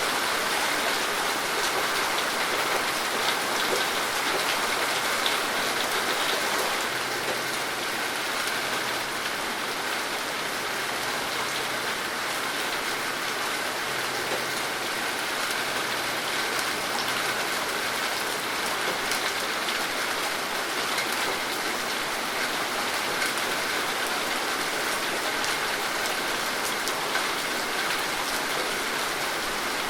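Steady rain falling: an even hiss of dense drops, with scattered individual drops ticking on a surface.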